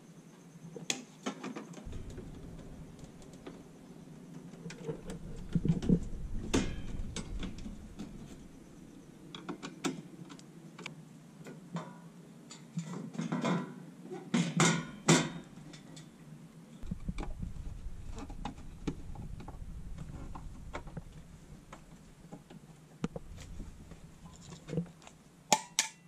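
Scattered clicks, taps and knocks of a screwdriver and stiff wires being worked inside a metal breaker panel, with stretches of low rumble that come and go.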